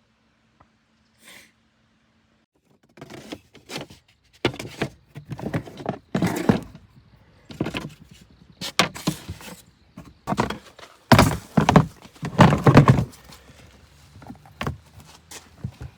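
Near silence, then from about three seconds in a run of irregular thumps, knocks and scraping noises of uneven loudness, as of things being handled and set down.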